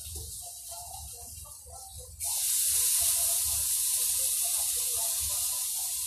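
Water poured from an electric kettle into a hot frying pan of fish, striking the pan with a sudden loud sizzle and hiss about two seconds in that carries on and slowly fades. Before that, the fish sizzles faintly in the pan.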